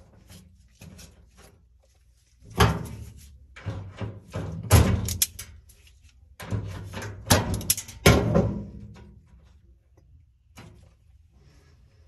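Sheet metal inside an opened dryer cabinet clanking and rattling as a wire is pulled and handled: several clusters of sharp knocks with short ringing, from about two and a half to nine seconds in.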